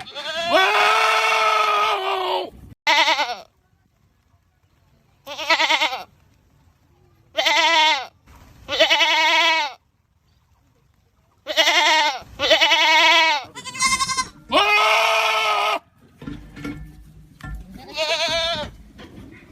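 Goats screaming: a run of about ten loud, quavering bleats, some short and some held for up to two and a half seconds, with brief silences between them.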